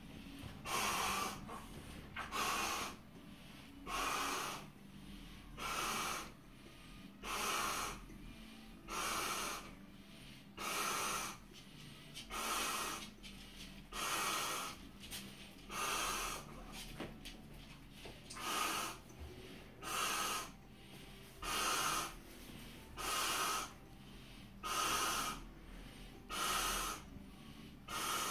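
A man blowing up a large latex balloon by mouth: heavy, noisy breaths drawn between blows, in a steady rhythm of about one every two seconds.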